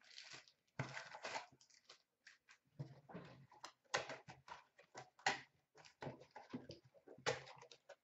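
Irregular rustling, crinkling and light knocks of cardboard card boxes and packaging being handled, in short bursts.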